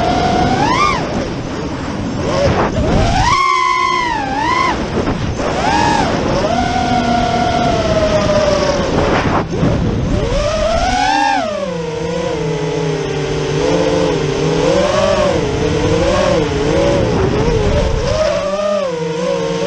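Brushless motors of a 5-inch FPV racing quadcopter (LD Power 2305 2750KV motors on DalProp Cyclone 5050 props) whining as they rev. The pitch swoops up and down with every throttle change, over a steady rush of prop wash and air noise on the onboard camera's microphone.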